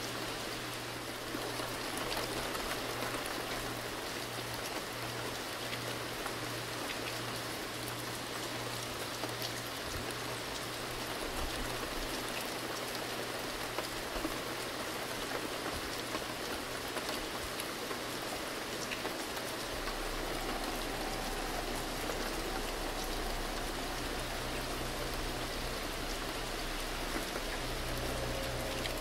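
A steady, even hiss like rain, with scattered faint ticks, over a low hum that gains a deeper layer about two-thirds of the way through.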